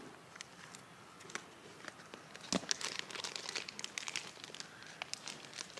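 Plastic packaging crinkling as it is handled and pulled open, with scattered small crackles that grow busier about halfway through.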